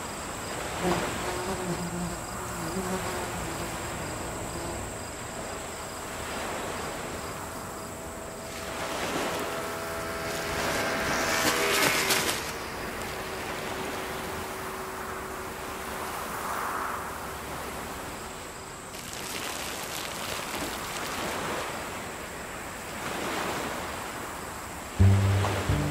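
Outdoor field ambience: a steady high insect buzz over rushes of noise that swell and fade every few seconds, with a low held tone drifting in and out. Music comes in loudly near the end.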